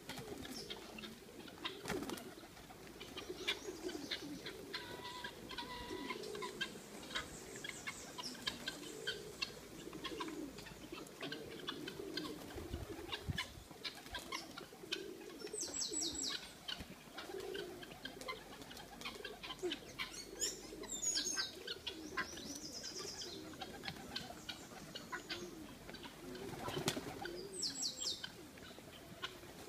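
Rock pigeons cooing over and over, with many short scattered taps and clicks and a few brief high bird calls.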